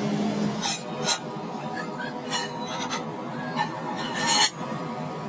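Several short, irregular scraping strokes of a hand tool rasping against metal, the longest a little over four seconds in, over a steady workshop background.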